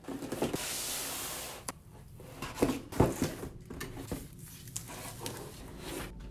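A laptop's cardboard box and foam-sleeve packaging being handled during unboxing: a long scraping rustle in the first second and a half, then a few sharp knocks near the middle and softer rustling of the foam wrap.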